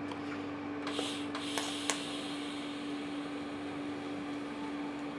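TIG welder striking an arc on sheet steel: a few sharp clicks and a brief hiss about a second in, then the quiet, steady sound of the arc laying a weld bead. A constant hum from the welding machine runs underneath.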